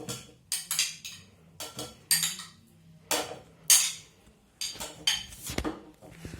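Irregular clinks and knocks of a spoon and kitchenware against a dish as strawberries are put into it, about a dozen sharp strikes spread unevenly.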